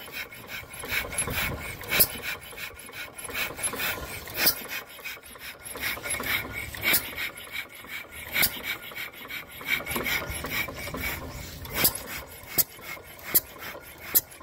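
Antique vertical single-cylinder stationary gas engine running, making a fast, uneven clatter of mechanical clicks with sharper, louder bangs at irregular intervals.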